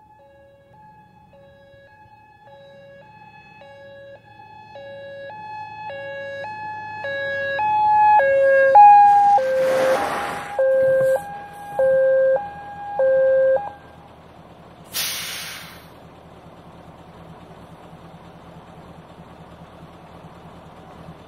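Fire engine's electronic two-tone siren switching steadily between a low and a high tone, growing louder as the truck approaches, then cutting off about two-thirds of the way through. Two sharp hisses of air brakes come as it pulls up, and the engine is left idling.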